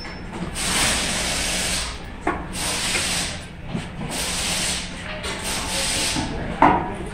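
Pneumatic air tools on a truck's wheels, hissing in repeated bursts of about a second each, with two sharp knocks, the second the loudest.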